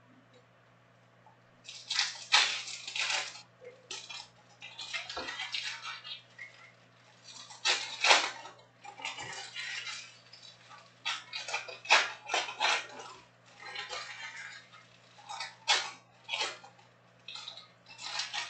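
Sealed foil trading-card packs crinkling and clattering as they are handled, shuffled and stacked on a table, in irregular bursts with short pauses between them.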